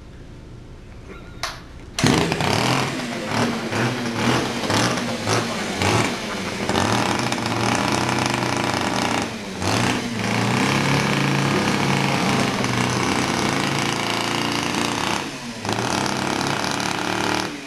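A chainsaw comes up to full speed abruptly about two seconds in and keeps running with its pitch wavering as it is revved while carving into an apple. It eases off briefly twice and drops back just before the end.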